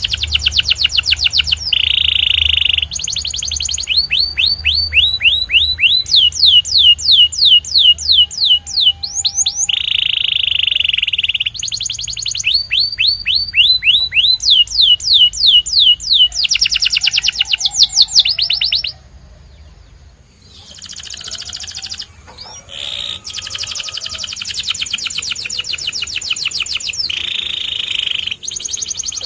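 Domestic canary singing: fast trills of repeated sweeping notes and buzzy rolls, one phrase after another, with a short pause about two-thirds of the way through.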